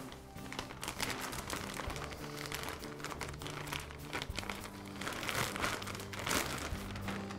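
Thick clear plastic dust-collector bag crinkling as it is handled and folded over its plastic retainer ring, with background music playing underneath.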